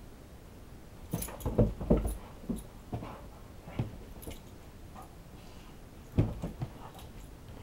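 Dull thumps on carpeted stairs as a Siberian husky plays catch: the ball bouncing and the dog's paws landing as it jumps for it. The thumps come in a burst about a second in, a few single ones after, and another loud thump with two lighter ones about six seconds in.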